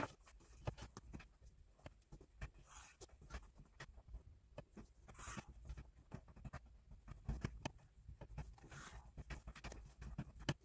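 Pen drawing straight lines along a ruler on paper: a short scratchy stroke every few seconds, with small taps and clicks of the ruler and pen being moved and set down in between.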